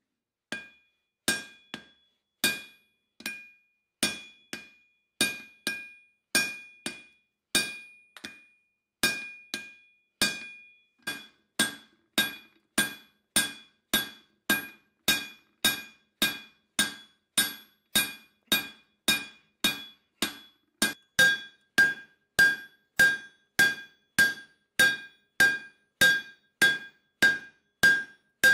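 Hand hammer blows on red-hot steel, an old hammer head being forged into a hot cut chisel on the anvil, in a steady rhythm of a little under two blows a second. Each blow gives a bright metallic anvil ring, which changes pitch and grows louder about two-thirds of the way in.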